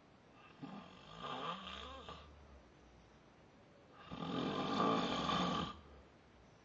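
A man snoring: two snores about three and a half seconds apart, the second one louder.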